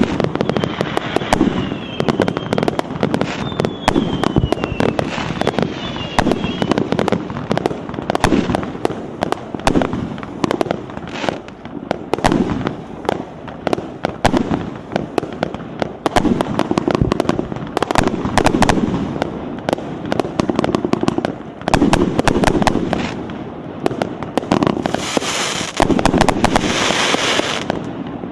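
PIROFF 'Vozdushny Karnaval' consumer firework cake firing a continuous rapid barrage of shots and bursts with crackling. Thin whistles waver through the first several seconds, and near the end come two bursts of high hissing.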